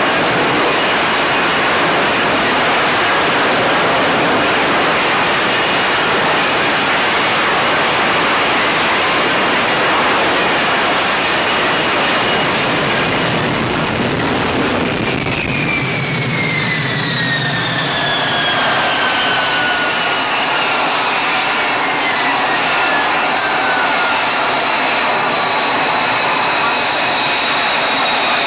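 F-35B's Pratt & Whitney F135 jet engine and lift fan running loud and steady as the jet hovers and descends for a vertical landing. About halfway through, the jet noise drops and several whining tones fall in pitch as the engine throttles back around touchdown, leaving a steady high whine.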